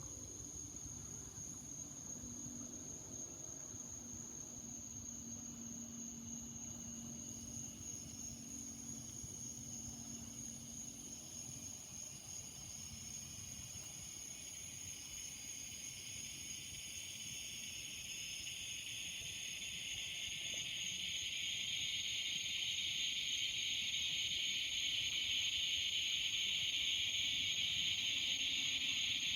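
Evening chorus of cicadas buzzing in the trees, swelling from about halfway through and staying loud to the end, over a steady thin high-pitched insect tone.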